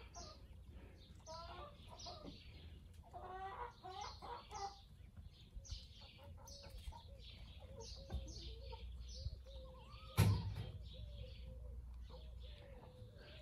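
Bresse Gauloise hens clucking, then keeping up a low, wavering run of contented calls, with high-pitched bird chirps throughout. A single sharp knock about ten seconds in is the loudest sound.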